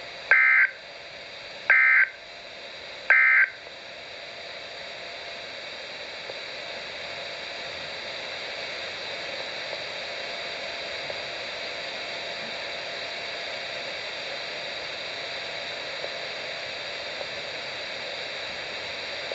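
NOAA Weather Radio EAS end-of-message signal: three short bursts of warbling SAME digital data tones, about a second and a half apart, followed by the steady hiss of the radio.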